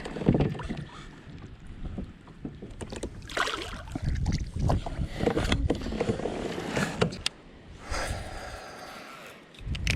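Water sloshing and knocking against a kayak hull, with irregular swishes and handling noises as the kayak is worked on the water.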